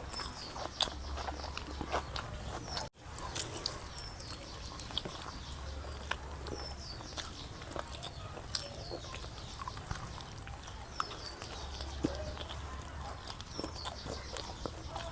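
Close-up eating sounds: chewing, with many small wet clicks and crunches, and faint bird chirps behind.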